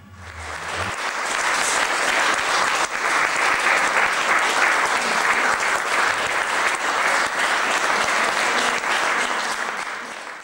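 Audience applauding: the clapping swells over the first second or two, holds steady and thins a little near the end. A low tone dies away about a second in as the applause builds.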